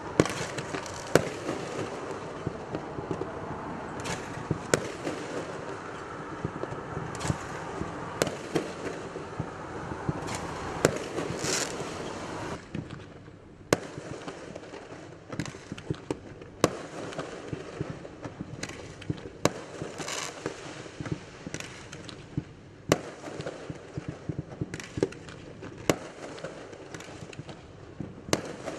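Fireworks going off: many irregular sharp bangs over a dense crackle and hiss, which thins out about halfway through, leaving scattered separate bangs and pops.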